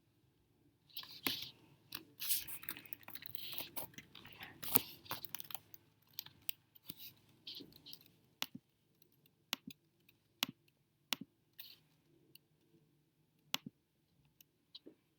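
Close crackling and rustling for about five seconds, then sharp single clicks at irregular intervals, roughly one a second.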